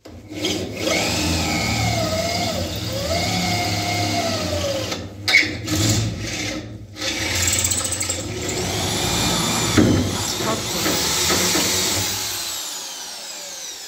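Cordless drill boring through a steel pipe rail, the motor running under load while the bit grinds and squeals in the metal. It pauses briefly about five and seven seconds in, then stops shortly before the end once the bit is through.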